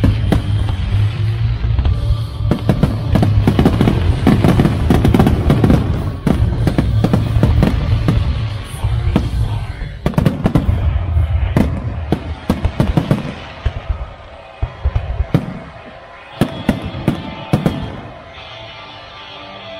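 Fireworks display over loud music: a rapid barrage of shell bursts and crackle for most of the stretch, thinning to a few separate bangs, then the music alone near the end.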